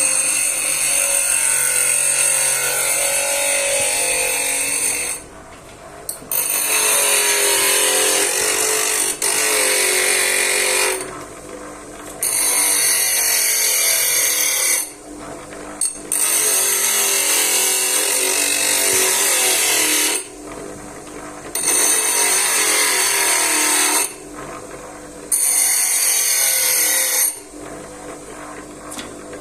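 Small grinder grinding a metal spanner to form a cutting bevel on it, run in six bursts of a few seconds each with short pauses between.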